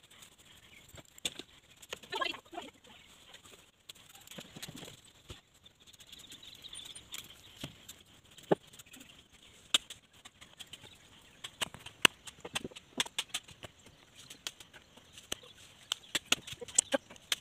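Irregular sharp knocks and snaps of freshly felled branches being cut and handled, coming thicker near the end, with a short call about two seconds in.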